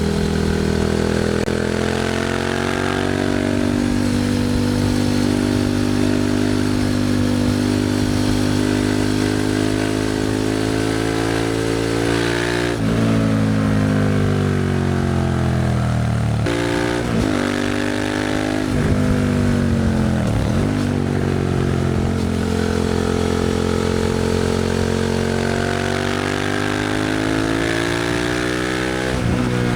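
Suzuki SV650's V-twin engine, running through a Leo Vince aftermarket exhaust on the move. The note pulls up steadily, drops sharply at gear changes about 13 and 16 seconds in, falls low around 20 seconds as the bike slows, then builds again under acceleration.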